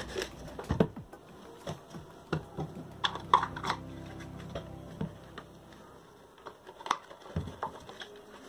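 Irregular plastic knocks and clicks as an electric motor is handled and pushed into a cut PVC pipe housing, with a quick cluster of clicks about three seconds in.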